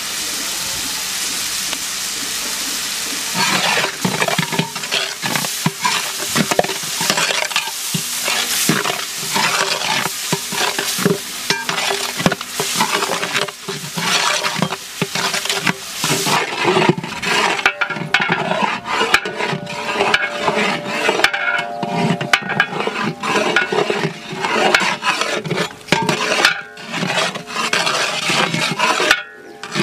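Chopped food sizzling in hot oil in a large aluminium pot while a long metal ladle stirs and scrapes it against the pot's sides and bottom. A steady sizzle comes first, then from about three seconds in a quick run of scraping strokes, with the sizzle fading somewhat about halfway through.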